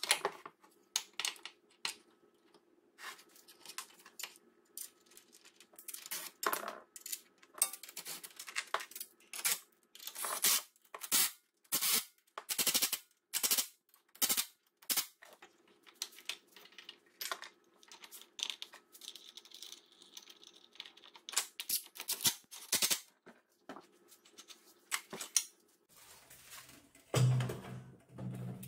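Irregular sharp metallic clinks and knocks of tools and steel parts being handled, over a faint steady hum. A louder low droning sound comes in near the end.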